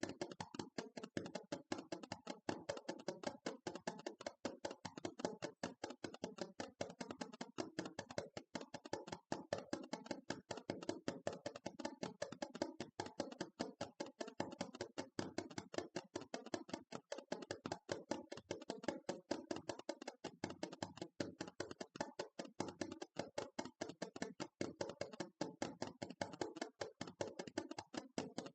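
Fingertips tapping rapidly and continuously on a hard surface, a fast, even stream of short taps several per second.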